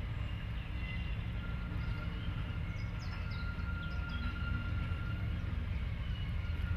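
Class 56 diesel locomotive's Ruston-Paxman 16-cylinder engine running with a steady low rumble as it approaches slowly hauling a coach, growing gradually louder. A few short high chirps come through about halfway.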